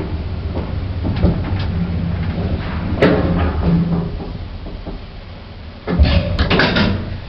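Old passenger lift running: a steady low motor hum with scattered clicks and a sharp knock about three seconds in. A loud clattering follows about six seconds in, and the hum stops near the end.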